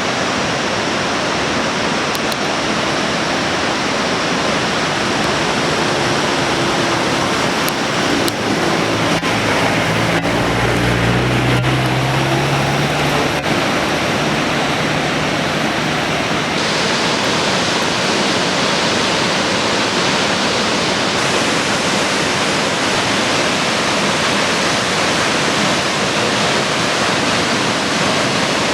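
Waterfall pouring in a steady, loud rush of falling water. About ten seconds in, a low droning tone rises briefly over it and then fades.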